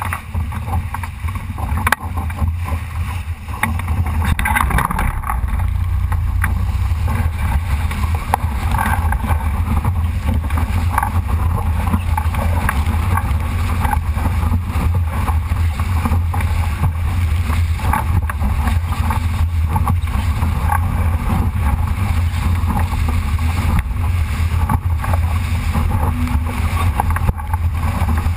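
Wind buffeting a GoPro's microphone in a steady low rumble, over water rushing and slapping against the hull of a Solo sailing dinghy under sail, rising a little about four seconds in.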